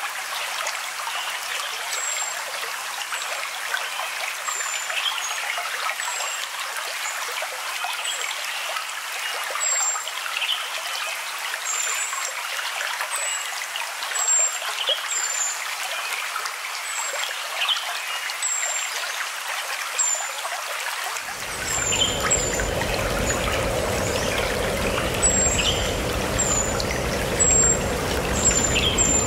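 Stream water trickling and running steadily, with short high bird chirps about once a second. About three-quarters of the way through, the water sound turns fuller and deeper, like heavier flowing water.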